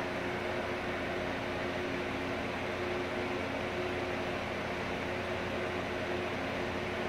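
Steady hiss with a faint, even machine hum of a few held tones underneath, unchanging throughout.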